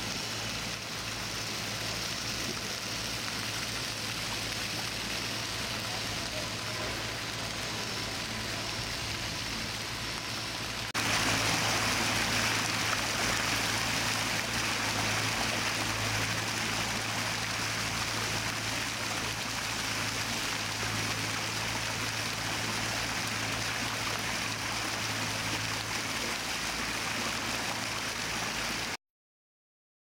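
Water running and splashing down the stepped stone blocks of a cascade water feature, a steady rush over a low steady hum. It gets louder about eleven seconds in and cuts off suddenly near the end.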